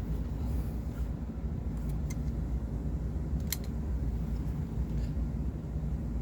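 Steady low background hum with a few small clicks and taps from handling the air rifle on the table; the sharpest click comes about three and a half seconds in.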